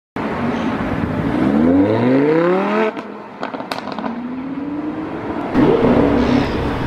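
Lamborghini Aventador LP700-4's V12, breathing through a full IPE exhaust, revving up with its pitch rising for about a second and a half, then cutting off sharply into a string of exhaust pops and crackles on the overrun. The engine comes back in louder, at a steadier pitch, near the end.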